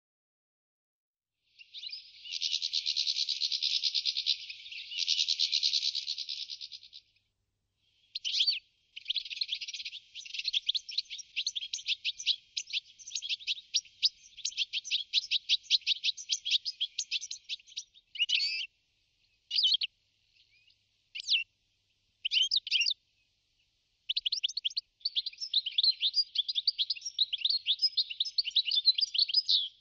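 European goldfinch singing: a long, rapid twittering song of fast notes, starting about two seconds in. It breaks off a few times, with short separate phrases in the middle, then runs on without a break near the end.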